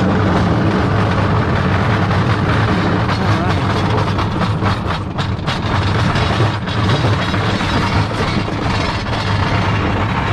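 Large plastic bin loaded with scrap metal being pushed on wheels across concrete: a steady rolling rumble, with short knocks here and there from the load.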